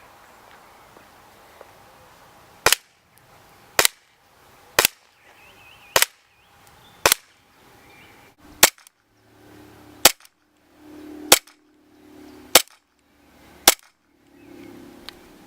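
Umarex M93 Raffica airsoft pistol firing single shots, about ten sharp cracks spaced a second or so apart.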